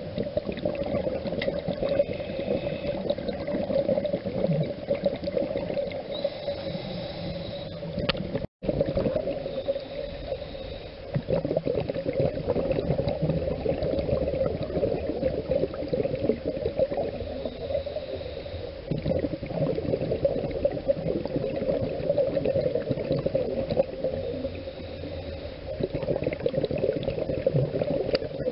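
Muffled underwater noise picked up by a camera in its housing on a scuba dive, with gurgling from the diver's exhaled regulator bubbles swelling and fading. The sound drops out for an instant about eight seconds in.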